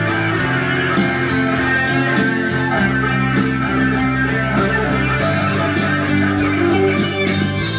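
Single-cutaway electric guitar played through an amplified rig, held notes changing every second or two over a steady beat of about four ticks a second.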